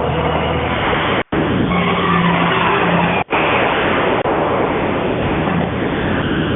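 Residential garage door running on its opener, loud and noisy with squealing and grinding from the rollers and tracks: the sound of a door due for new rollers and a tune-up. It cuts out for a moment twice, about one and three seconds in.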